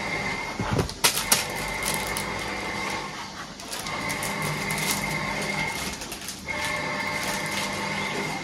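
Kittens playing on a leather sofa: a sharp clatter of knocks about a second in, then scattered soft rustles and taps of paws on plastic bags. Under it runs a steady hum with a high whine that cuts in and out every few seconds.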